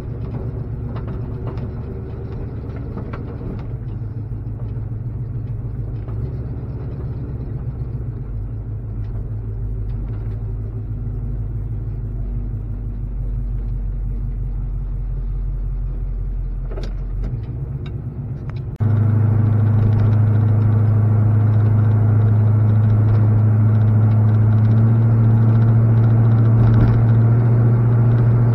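Old Chevrolet farm truck's engine running, heard from inside the cab as it pulls away. About two-thirds of the way through it turns abruptly into a louder, steady drone at road speed.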